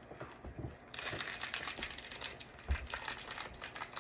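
Small plastic snack packet crinkling as it is worked open by hand, with a low thump about two-thirds of the way through.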